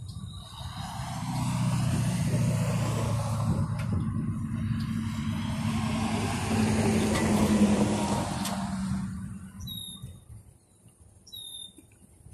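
A motor vehicle passing close by on the highway, its engine and tyre noise swelling up, holding for several seconds and fading away. Two short high chirps follow near the end.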